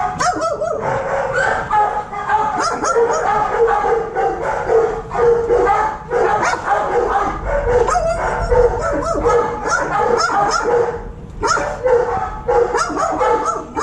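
Dogs barking and yelping continuously, their calls overlapping, with a short lull about eleven seconds in.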